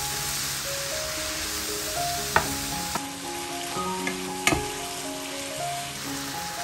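Sliced mushrooms sizzling in hot oil in a frying pan while a wooden spoon stirs them. The spoon knocks sharply against the pan twice.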